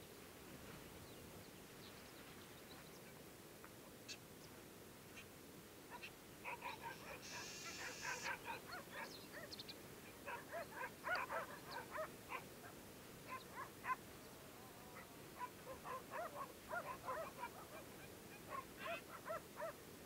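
Trumpeter finch calling and singing: quick series of short nasal, reedy notes from about six seconds in, with a longer buzzy note near eight seconds. The first seconds are almost quiet apart from a few faint distant notes.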